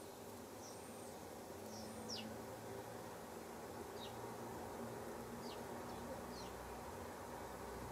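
Steady low buzzing of insects around the hen house, with short, high chirps that fall in pitch heard about six times.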